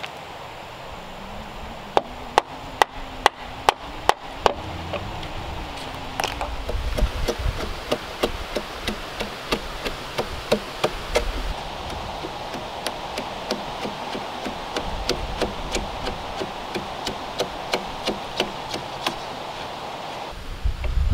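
Wooden mallet driving a framing chisel into a timber beam: a run of about seven sharp strikes, a little over two a second, then lighter, irregular knocks and chisel cuts as the joint is worked.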